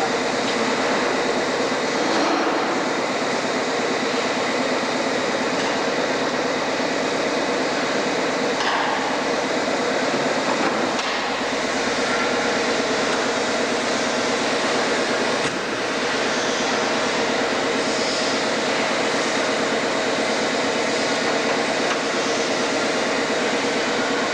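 Steady mechanical drone with a constant hum, broken by a few sharp knocks.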